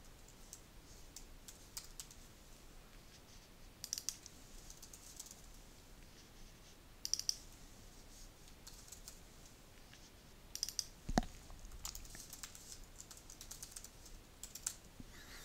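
Faint typing on a computer keyboard, in short bursts of keystrokes with pauses between them, and a single low thud about eleven seconds in.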